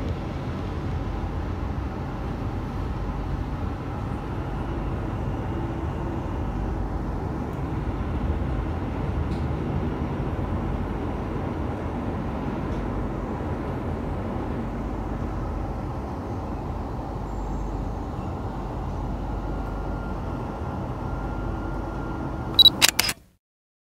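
Metro train running, heard from on board: a steady rumble with a faint whine. Near the end come a few sharp clicks, then the sound cuts off suddenly.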